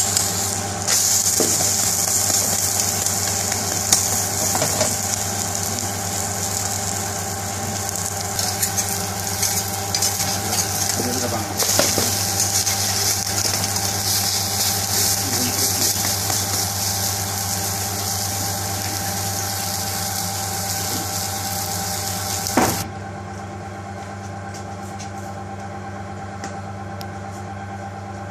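Egg omelette sizzling in a hot frying pan, with a few sharp taps and scrapes of a spatula against the pan, over a steady hum. The sizzling cuts off suddenly about 23 seconds in, leaving only the hum.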